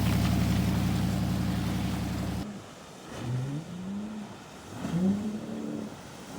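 An engine running steadily, which cuts off abruptly about two and a half seconds in; two short rising whines follow, a second or so apart.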